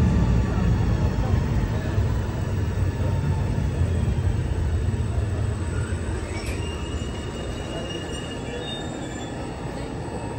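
Electric commuter train (Alstom X60 multiple unit) pulling into an underground platform and braking: a low rumble of wheels that fades as it slows, with a thin brake squeal rising about six seconds in and holding as high tones.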